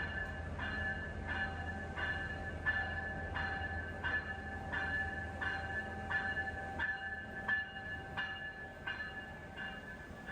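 A railway bell ringing steadily, struck about once every 0.7 seconds, over a low steady hum from the train that fades out about two thirds of the way through.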